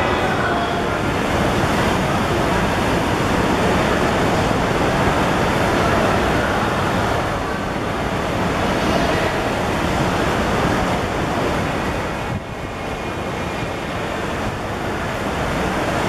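Steady rushing noise of typhoon wind and rain, briefly quieter about twelve seconds in.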